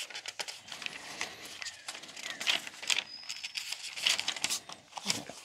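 Pages of a Bible being turned and handled: a string of irregular soft paper rustles and flicks.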